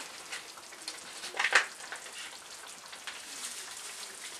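Pork ribs and onions sizzling and bubbling in a little water in a frying pan, a steady, fairly quiet crackling hiss. A brief louder burst of noise about a second and a half in.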